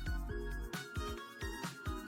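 Background music: a bouncy track with a steady beat, about four low thumps a second, under held keyboard notes.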